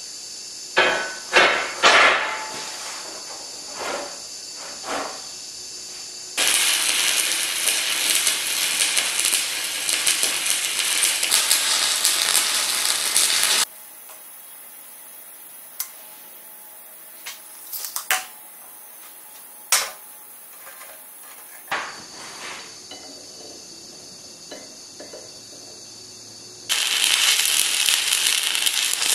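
Heavy steel pieces clanking and knocking against each other a few times, then a long stretch of loud, even hiss, a quieter spell with a few sharp ticks, and near the end arc welding on steel bars starts with a loud steady crackle.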